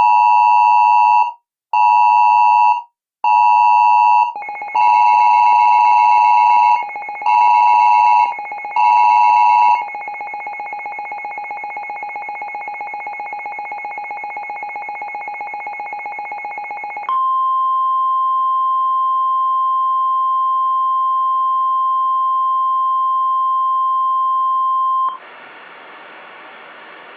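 Mock Emergency Alert System tone sequence. Three short beeping bursts are followed by a continuous alert tone with further beeps laid over it, then a fluttering tone. Next comes a long steady single-pitch warning tone, and it ends in a couple of seconds of faint hiss just before the alert message starts.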